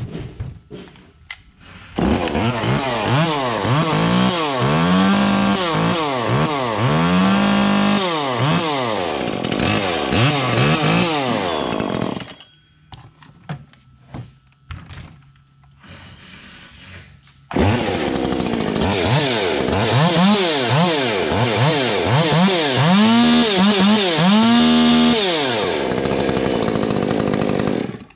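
Two modified Stihl two-stroke chainsaws, an MS201 and an MS150 with custom exhausts, started one after the other, each revved repeatedly, climbing to full speed and dropping back about once a second. Between the two runs there are scattered clicks and knocks.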